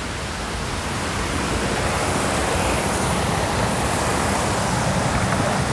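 Steady rushing of water, growing slowly louder.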